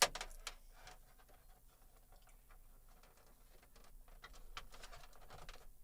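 Faint handling noise: scattered small clicks, taps and rustles, with one sharper knock right at the start.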